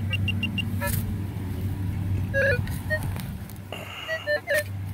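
Handheld metal-detecting pinpointer beeping in quick short pulses in the first half second as it is probed into the hole on a target. A sharp knock comes about a second in, and a few short tones follow near the middle and end, all over a steady low engine drone.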